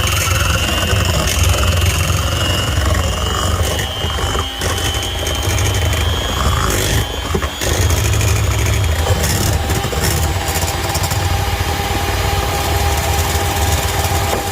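Electric mixer motor running steadily: a high whine over a strong low hum, with the pitch settling after the motor spins up.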